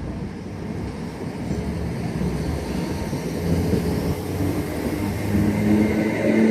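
Class 319 electric multiple unit pulling out of the station, its running noise growing steadily louder, with a steady hum of a few notes coming in near the end.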